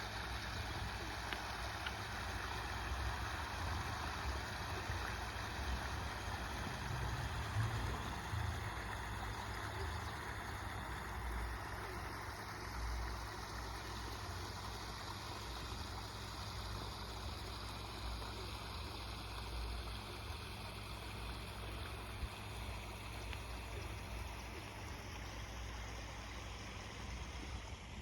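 Backyard waterfall with water rushing and splashing steadily, over a low rumble.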